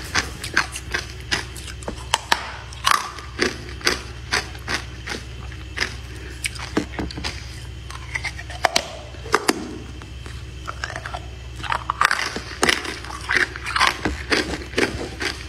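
Close-up crunching and chewing of frozen matcha ice, with many sharp cracks a second as the ice breaks between the teeth and a short lull about two thirds of the way through. A steady low hum runs underneath.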